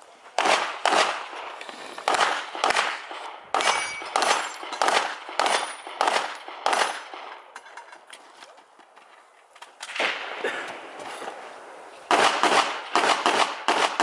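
Handgun shots fired in quick strings by a competitor shooting an IPSC stage. A long run of shots, roughly two to three a second, comes first. After a pause of about three seconds there are a few more shots, and then a fast string near the end.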